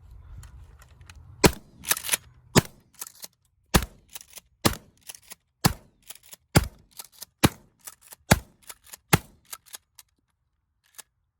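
Mossberg 590 12-gauge pump-action shotgun fired in rapid succession, about nine shots roughly a second apart, with smaller clacks between the shots.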